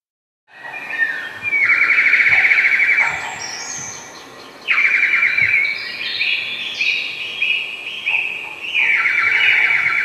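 Bird-like warbling sound effect: three long, rapid trills at about the same pitch, with shorter, higher chirps and whistles between them, starting about half a second in.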